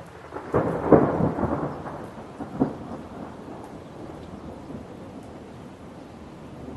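Thunder with rain: a crackling thunderclap breaks about a second in, a second sharp crack follows a couple of seconds later, and then a long rumble fades away over steady falling rain.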